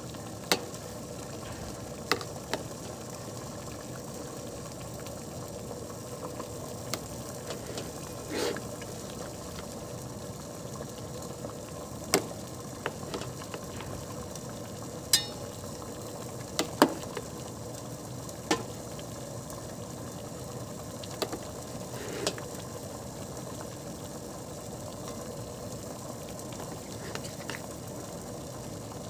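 Utensil clicking and tapping against a poke bowl, about a dozen sharp, brief clicks spread unevenly over a steady low hiss.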